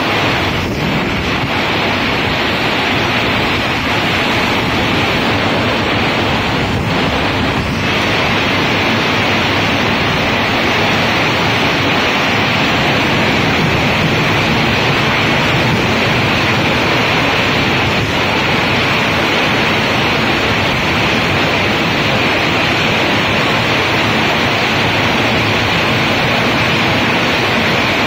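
Torrential rain pouring down in a thunderstorm, a loud steady hiss, with wind buffeting the microphone.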